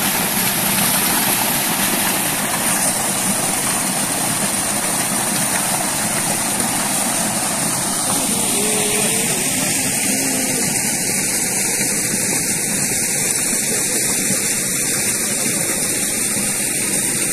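Irrigation water gushing out of a pump's outlet pipe into a dug pit: a steady rushing, whose tone shifts a little about halfway through.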